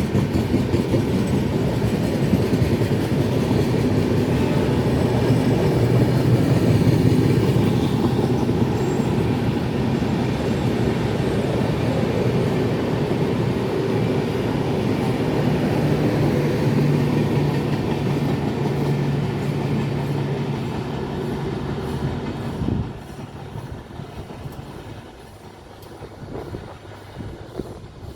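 Passenger coaches of a departing express train rolling past on the track, wheels clattering over rail joints in a steady rumble. The noise drops off sharply about 23 seconds in, as the end of the train passes, leaving a fainter receding sound.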